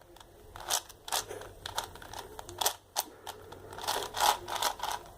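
Plastic 5x5 speed cube being turned by hand: irregular clicking and clacking of its layers.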